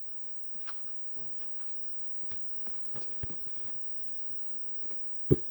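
Faint scattered clicks, taps and rustles of paper craft pieces being handled. One short louder knock comes near the end.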